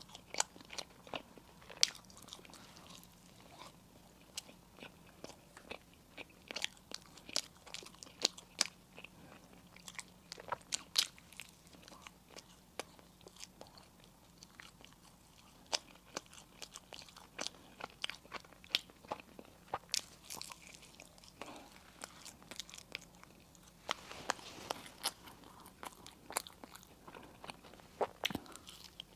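Close-miked chewing and crunching of crisp pastry and sweets: irregular sharp crackles and bites with soft mouth sounds between them, busiest about three-quarters of the way through.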